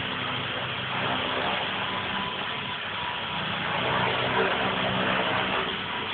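E-sky Honey Bee King II electric RC helicopter hovering: a steady whir of motor and rotor blades, a little louder about four seconds in.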